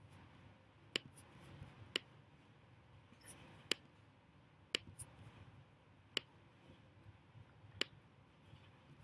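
Computer mouse clicking: about seven single clicks at irregular intervals, a second or so apart, over faint room noise, as the mouse is used to clear and draw on the screen.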